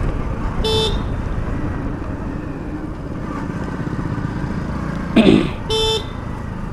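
Hero Splendor motorcycle's single-cylinder four-stroke engine running at road speed with road and wind noise, heard from the rider's seat. Two short horn beeps sound, about a second in and near the end. A brief loud burst of noise comes just before the second beep.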